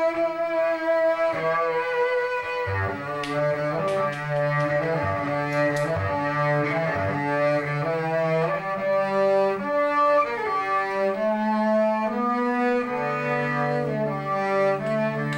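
Double bass bowed in long held notes, with a trumpet playing held tones alongside: live improvised jazz.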